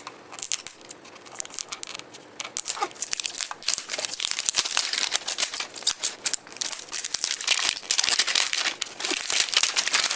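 Toy packaging being crinkled and torn open by hand, a dense run of crackles that gets louder and busier about four seconds in.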